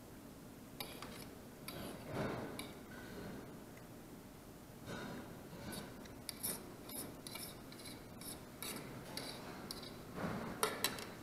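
A utensil scraping and rubbing across a plate in short, irregular strokes, as the last of the food is pushed around and scraped up. There are several louder scrapes near the end.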